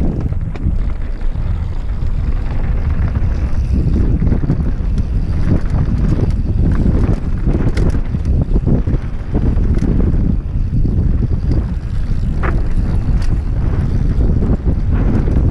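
Wind buffeting a helmet-mounted camera's microphone on a fast mountain-bike descent, a loud steady rumble, with tyres running over a dirt trail and scattered clicks and rattles from the bike over bumps.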